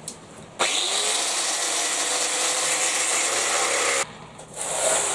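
A power cutting tool spins up with a brief rising whine and cuts off the lugs of a badge for about three and a half seconds, then stops suddenly.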